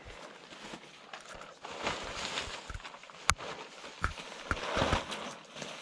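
Quechua 2 Seconds pop-up tent being pulled together and folded by hand: tent fabric rustling with scattered knocks from the frame, a sharp click about three seconds in and a few thumps near the end.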